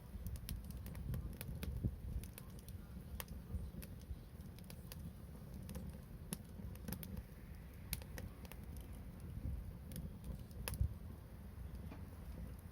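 Bonfire crackling, with irregular sharp pops and snaps of varying loudness over a steady low rumble.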